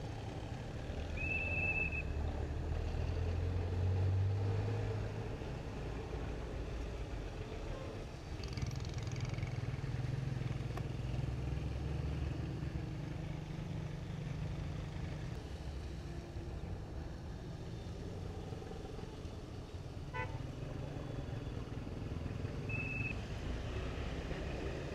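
Road traffic of cars and motorcycles passing, a low engine rumble that swells and fades, with two short horn toots, one about a second in and one near the end.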